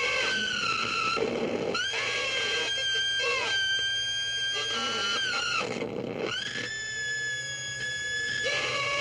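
A young woman screaming on a slingshot thrill ride: long, high, held screams, broken twice by a short gasp for breath, about a second in and again near six seconds.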